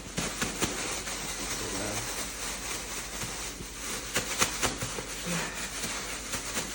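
Rustling with many light knocks and clicks as raw chicken wings are tossed and worked by hand in seasoned flour.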